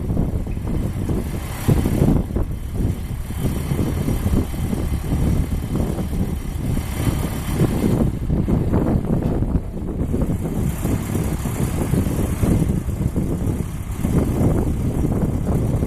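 Ford 2N tractor's four-cylinder flathead engine running steadily.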